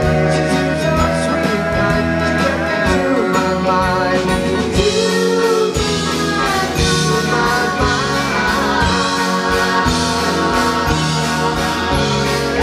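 Live band playing a 1960s pop-rock song through a stage PA, with acoustic and electric guitars, bass guitar and drums under sung vocals.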